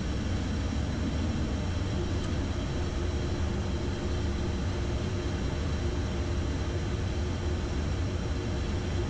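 Steady cockpit noise of an Embraer Phenom 300E business jet on instrument approach with flaps extending: an even rush of airflow over a low engine hum, with a steady tone joining about two seconds in.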